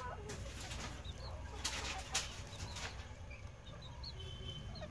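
Old English Game bantam chickens foraging: a few soft clucks and short high peeps, with a couple of short sharp rustles or knocks about two seconds in.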